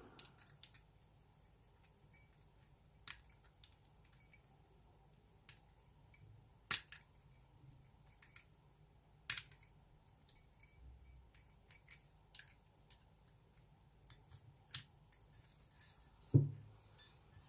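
Scattered small metallic clicks and clinks as a dimple lock and metal tools are handled, with two sharper clicks about 7 and 9 seconds in and a duller knock near the end.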